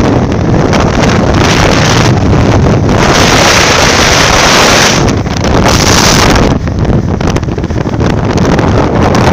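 Wind buffeting the microphone on a moving Bajaj Avenger 220 motorcycle, a loud, steady rush with no clear engine note. It swells loudest between about three and five seconds in.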